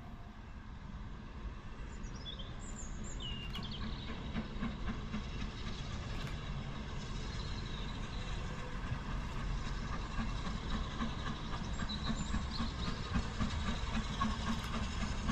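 BR Standard Class 9F 2-10-0 steam locomotive working in the distance: a low rumble with rapid exhaust pulsing, growing steadily louder. A few bird chirps sound over it.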